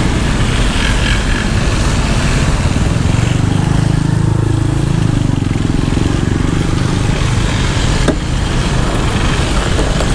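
Steady low rumble of motor-vehicle and motorcycle traffic, swelling for a few seconds in the middle, with one short click about eight seconds in.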